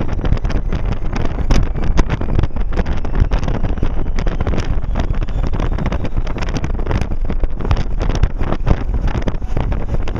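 Wind rushing and buffeting on the microphone over the steady rumble of a car driving at speed, with irregular gusty thumps throughout.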